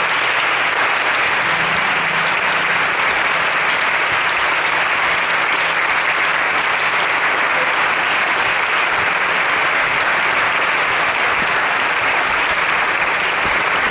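Audience applauding, many people clapping at once in a loud, steady wash that holds without a break.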